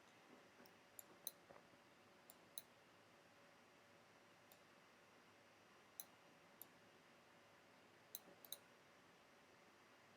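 Faint computer mouse clicks over quiet room tone, several in quick pairs, with a few seconds' gap in the middle.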